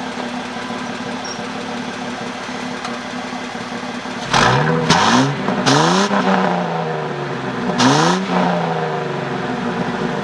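2000 Ford Mustang's 3.8-litre V6 idling steadily, then revved briefly three times about four seconds in, each time dropping back toward idle. The owners suspect an exhaust leak behind the engine's ticking.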